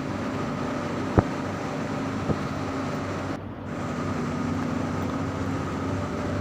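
Steady mechanical hum of running machinery, with a single sharp click about a second in and a brief dip just past the middle.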